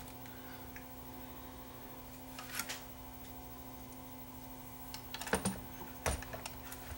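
Small clicks and light knocks of metal and plastic parts being handled as the tone arm assembly is set back into the turntable chassis: one click a few seconds in, then a quick run of clicks and a knock near the end, over a faint steady hum.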